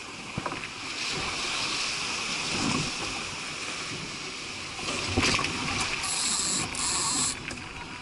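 Small sailboat's hull rushing through choppy water, with waves slapping and splashing against it and wind buffeting the microphone. A louder hiss rises about six seconds in and lasts about a second.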